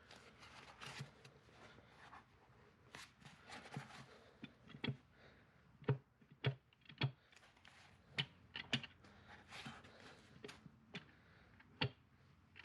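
Irregular light knocks and clicks of metal transmission and clutch parts being handled and shifted during fitting, with a few sharper knocks in the middle and one more near the end.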